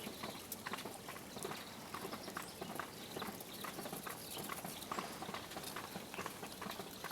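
Great spotted woodpecker pecking at wood: a run of short, irregular taps, several a second.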